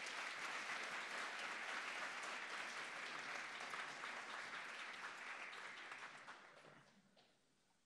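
Audience applauding steadily, then dying away over the last two seconds.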